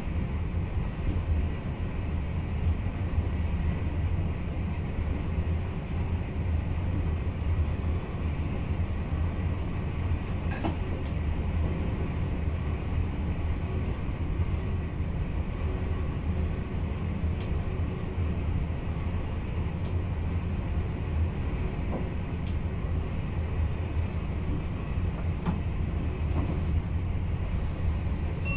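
VIRM double-deck electric train running on the line, heard from the driver's cab: a steady low rumble of wheels on rail, with a few faint clicks.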